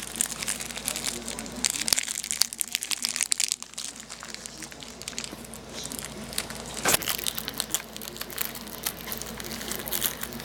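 Crinkly toy packaging being crumpled and worked open by hand: a dense, irregular crackling that thins out in the middle and picks up again about six seconds in.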